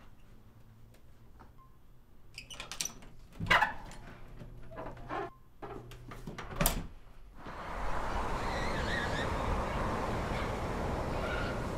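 Several brass deadbolts on an apartment door being worked by hand: a run of metal clicks and clunks, two of them louder knocks. About eight seconds in, a steady rushing noise like wind and street traffic takes over.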